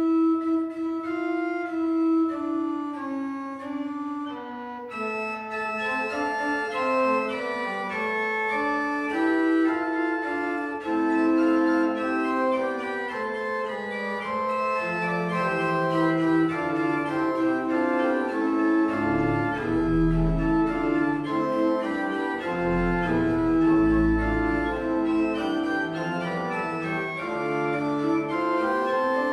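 Pipe organ, a Roman-style Ponzani organ after Bonifazi (1638), playing a four-voice canzona on principal and octave stops with a wooden contrabass stop. It begins with a single line, further voices enter within the first few seconds, and deep bass notes sound about twenty seconds in.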